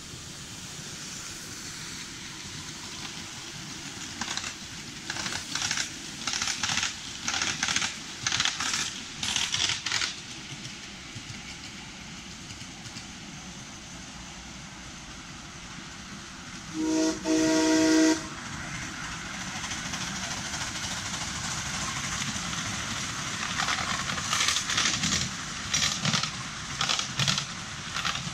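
Miniature steam locomotive working a passenger train, its exhaust chuffing in a steady beat. About seventeen seconds in it gives one whistle blast of a second and a half with several tones, then the chuffing comes back louder and quicker as the train draws close.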